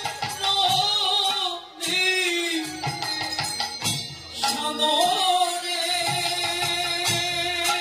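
A woman singing a Bengali kirtan through a PA system, holding long wavering notes with brief breaks between phrases, over a percussion accompaniment.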